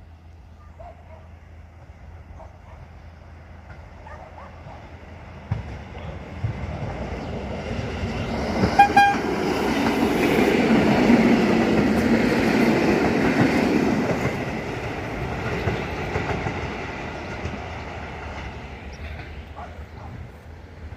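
A train passing over a level crossing: the rumble of wheels on the rails builds from about six seconds in, is loudest in the middle and fades away near the end. There is a brief toot of the horn about nine seconds in.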